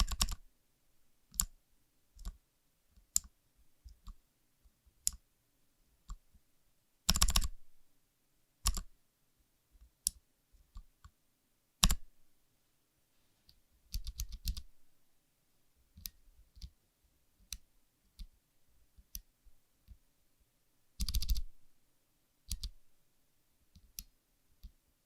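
Mechanical keyboard keys with Gateron Milky Green switches being pressed, some as single clacks and some in quick runs of typing.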